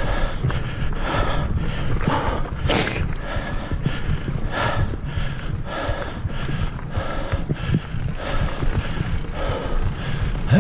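Mountain bike rolling over a rough dirt singletrack: a continuous rattle and clatter of the bike and its tyres over roots and rocks, with a sharper clack about three seconds in.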